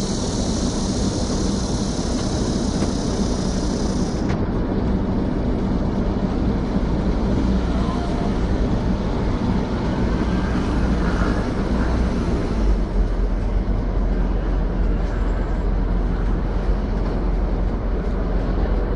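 Steady low rumble of outdoor street background noise, with a high hiss that drops away about four seconds in.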